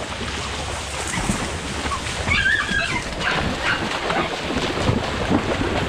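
Feet splashing while wading through a shallow muddy stream, with a hunting dog's high, wavering whine a little over two seconds in.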